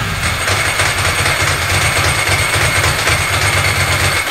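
Ducati ST4's V-twin engine running at a steady idle with a pulsing rumble, newly brought back to life after three years laid up. It is switched off at the very end.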